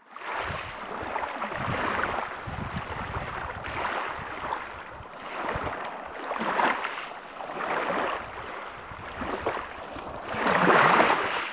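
Sea waves washing onto a pebble beach: a hissing rush that swells and eases every couple of seconds, with the biggest surge near the end.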